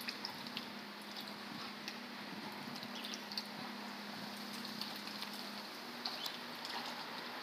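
Faint splashing at the water's surface and a few light clicks as a Muscovy duck snatches bread from the pond, over a steady low hum.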